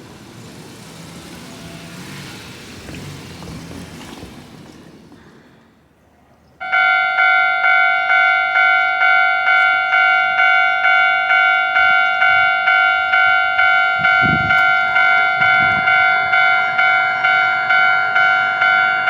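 A rushing vehicle noise fades away, then about seven seconds in a level-crossing warning bell starts ringing: a loud electronic ding repeating about twice a second, signalling that a train is approaching and the crossing is closing.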